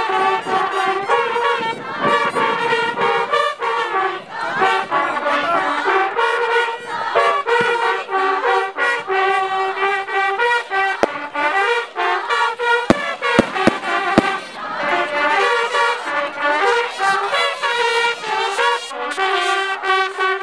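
Several brass trumpets playing a festival fanfare together, a rhythmic run of held notes. A few sharp cracks sound close together about two-thirds of the way through.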